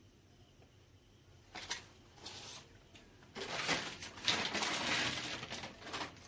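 Rustling and scraping from hands working over the amplifier and its wiring: a short burst about a second and a half in, then a longer, denser spell of irregular rustling that stops just before the end.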